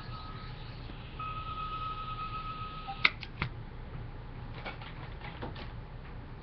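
A steady high tone breaks off briefly just after the start, resumes, and stops about three seconds in with a sharp click. Two more clicks follow quickly, then fainter taps and knocks of handling.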